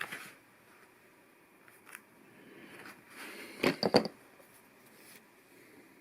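LEGO Technic plastic pieces being handled: a sharp click at the start, a lighter tick about two seconds in, then rustling and a quick run of loud clicks and clatter around four seconds in.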